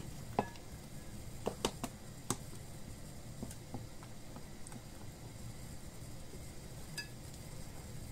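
A whisk stirring flour into a runny batter in a glass bowl. Faint mixing is punctuated by a few sharp clicks as the whisk knocks the glass, most of them in the first few seconds and one more about seven seconds in.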